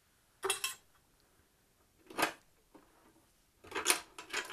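Handling sounds on a cloth-covered table: a quick cluster of clacks about half a second in as the pliers are moved, a single knock a couple of seconds later, then a run of knocks and light scraping near the end as the metal projection assembly is gripped and turned around.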